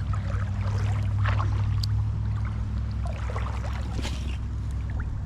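An engine running steadily with a low, even hum, with faint scattered rustling and crackling over it.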